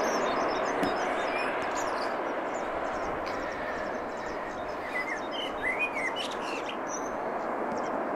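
Distant Boeing 777-300 jet engines on the landing rollout, a steady rush that eases slightly as the airliner slows. Small birds chirp over it, several short chirps clustered about five to six seconds in.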